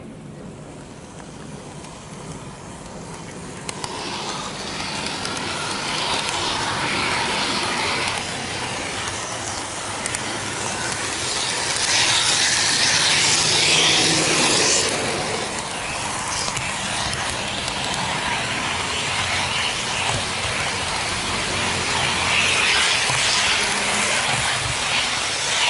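N gauge model train running along its track, heard close up from on board: a steady rolling hiss and rattle of small wheels on rail. It grows louder about four seconds in and is loudest around the middle.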